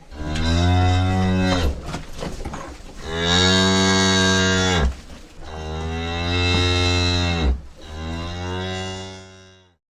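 A cow mooing: four long, drawn-out moos, each dropping in pitch as it ends.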